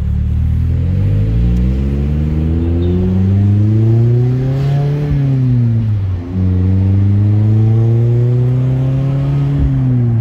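A 2021 Mazda Miata's 2.0-litre four-cylinder engine pulling, heard from the open-top cabin. The engine note rises for about four seconds, then falls away and breaks off briefly about six seconds in. It then holds and climbs slowly again, dropping near the end.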